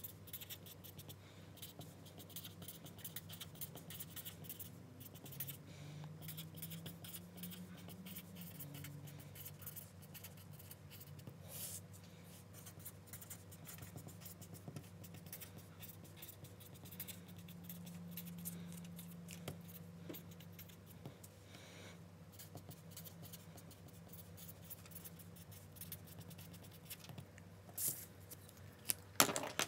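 Felt-tip marker scratching across paper in quick short strokes as words are written out, over a faint steady low hum. Near the end, a few louder knocks and rustles as the paper is cleared off the cutting mat.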